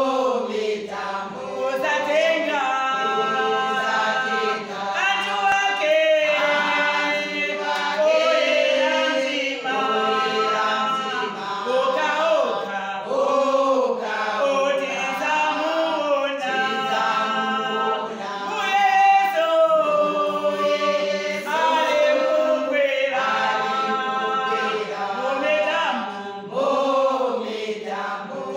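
Women's choir singing a cappella in several-part harmony, phrase after phrase without pause.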